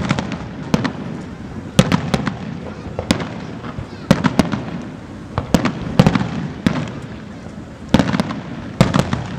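Fireworks display: aerial shells bursting in a string of sharp bangs about a second apart, some in quick pairs, with a rumbling low echo in between.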